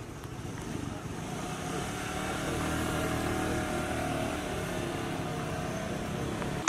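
A motor vehicle passing on a road, its engine drone swelling to a peak about three seconds in and then easing off.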